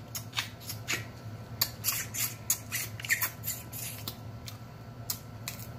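Close-up mouth sounds of eating: a string of short wet lip smacks and sucking clicks as seafood-boil sauce is licked and sucked off the fingers, with a brief squeak of suction about halfway through.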